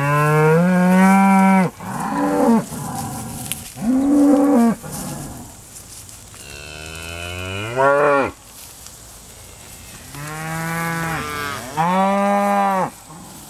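Hereford beef cows mooing: about six loud, drawn-out moos one after another, the one near the middle rising in pitch as it goes.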